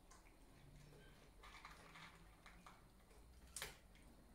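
Cats eating dry kibble from bowls: faint, irregular crunches and small clicks, a little busier in the middle, with one sharper click about three and a half seconds in.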